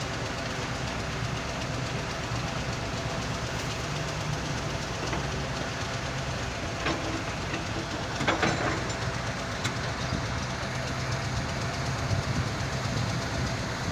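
Heavy machinery at a stone-and-sand screening site running steadily: a continuous diesel engine rumble with a few sharp clattering knocks about seven and eight and a half seconds in.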